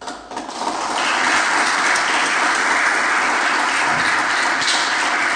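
Audience applause, filling in over the first second and then holding steady.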